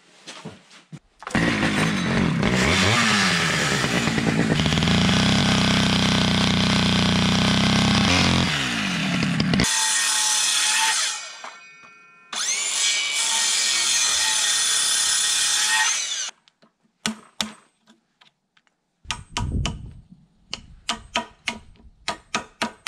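A cordless circular saw cuts into rough-cut timber in two runs, a long one of about eight seconds and a shorter one of about four. From about 17 seconds in, a hammer strikes a chisel in quick, sharp knocks to clear out the notch.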